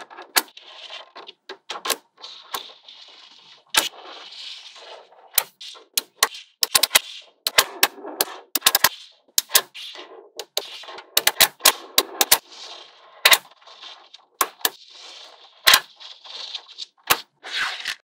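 Small magnetic balls snapping together with sharp, irregular clicks, and a rattling clatter of balls rolling and knocking against each other between the snaps.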